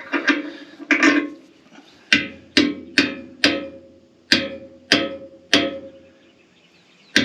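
Hammer blows on steel, about ten strikes mostly half a second apart, each ringing briefly, with a longer gap near the end: a part being driven into a bulldozer to line up its hole.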